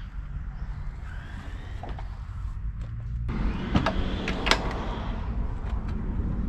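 Daihatsu Hijet kei truck's rear tailgate being unlatched and lowered, with sharp metal latch clicks about four seconds in, over a steady rumble of wind on the microphone.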